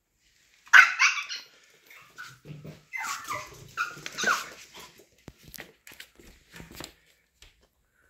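Pomeranian barking and crying in high-pitched yelps: a loud burst about a second in, then a second run of whining cries about three seconds in, followed by a few light clicks. This is distress at being left home alone.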